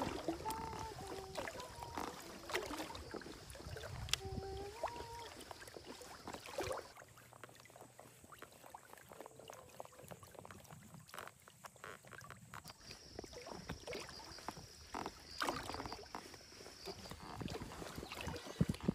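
Water lapping against a small inflatable boat, with scattered light clicks and knocks from fishing tackle being handled. A few short pitched calls sound in the first five seconds.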